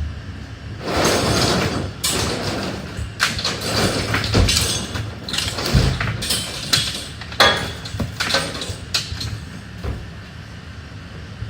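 Junk and debris being handled and tossed about: a busy run of knocks, bangs and scraping over a low steady rumble, easing off near the end.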